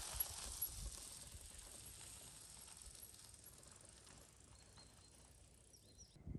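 Bicycle tyres crunching on a gravel road as an electric bike passes and rides away, the sound fading to a faint outdoor hush. A couple of faint high chirps come near the end.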